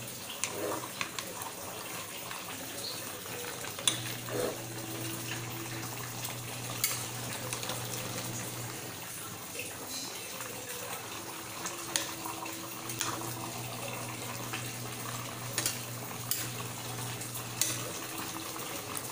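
Metal spatula scraping and knocking against an aluminium cooking pot as a thick jackfruit stew is turned over, with sharp clanks every second or two. A steady low hum comes and goes in two long stretches.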